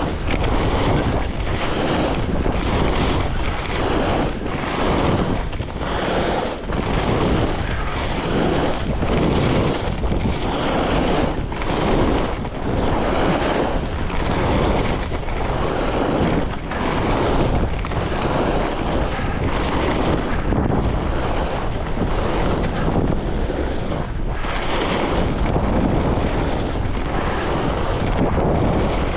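Wind rushing over the microphone and skis carving on groomed corduroy with a light layer of fresh snow, the noise swelling and fading about once a second with each linked turn.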